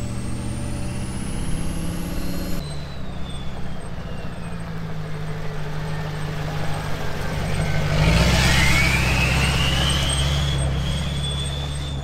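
A 6.6 L Duramax V8 diesel running, with a high turbo whistle climbing in pitch. About eight seconds in the engine gets louder and the whistle climbs again as the truck accelerates.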